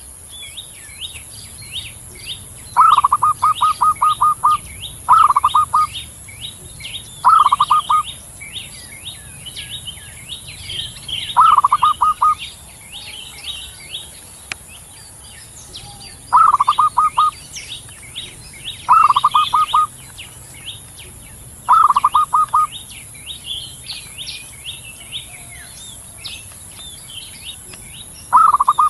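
Zebra dove (Javan perkutut) cooing in short, fast-pulsed phrases, eight of them at irregular intervals a few seconds apart. Constant high chirping of small birds and a steady high hiss run beneath.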